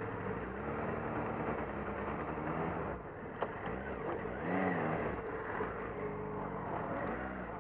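Motorcycle and car engines running at low speed, their engine notes rising and falling, with a swell in pitch about halfway through. A single sharp click sounds about three and a half seconds in.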